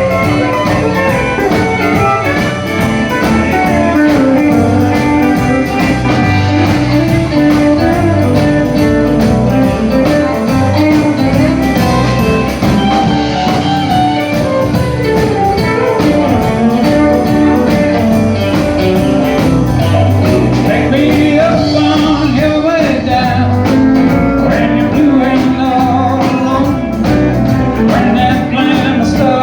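A live country band playing a song at full volume: guitars and drums with a singing voice over them.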